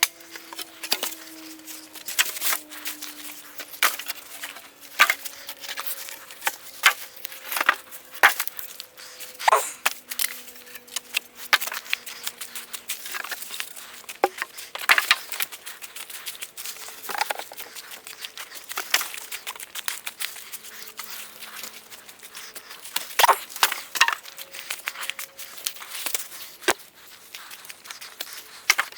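Dry wood and brush being handled: irregular cracks, snaps and knocks of sticks and poles, some louder than others, scattered unevenly throughout.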